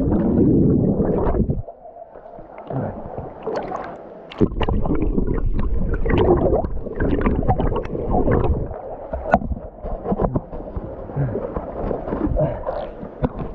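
Muffled underwater sound from a camera carried into a river pool: a rush of bubbles at first, then muffled sloshing with scattered knocks as the swimmer moves. Near the end it is back in open air.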